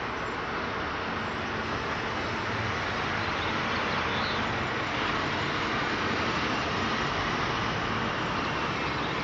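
Road traffic noise at a street intersection as a tractor-trailer and cars move through it: a steady rushing hiss that grows a little louder about three seconds in.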